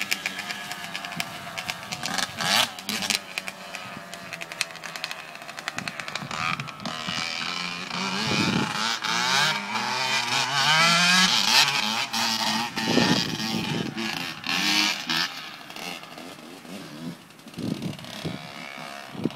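Dirt bike engines revving up and down as two bikes ride a motocross track at a distance, loudest about halfway through.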